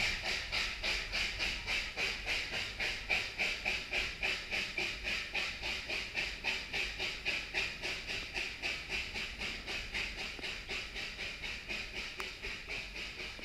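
Narrow-gauge steam locomotive working uphill, its exhaust chuffing in a steady, even rhythm of about three beats a second. The chuffing slowly grows fainter as the train moves away.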